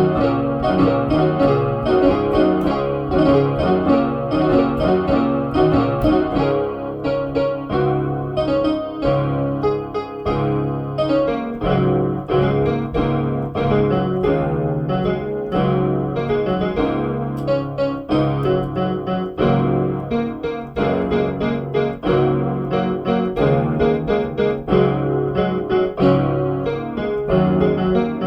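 Music played on an electronic keyboard with a piano sound: many quick notes over sustained low notes.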